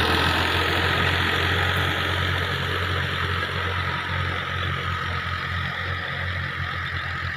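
Fiat tractor's diesel engine running steadily under load as it pulls a tine cultivator and leveling log through tilled soil, slowly fading as the tractor draws away.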